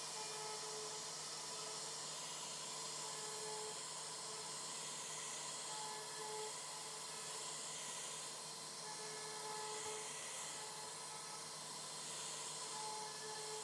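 CNC router spindle running as it carves wood: a steady high hiss with a faint whine that comes and goes every second or two.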